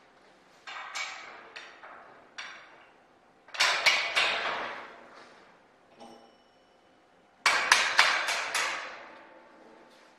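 Sharp metallic taps and clinks of a hand tool on a landing-gear wheel and axle as the wheel is fitted. A few single taps come first, then two louder groups of quick strikes, about four and eight seconds in.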